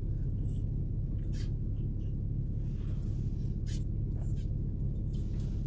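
Steady low hum inside a car cabin, with a few faint, short sips drawn through a drinking straw.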